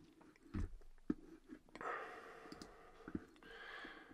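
Faint breathing from the lecturer, with a longer breath about two seconds in and another near the end, and a few soft clicks from a computer mouse or keyboard.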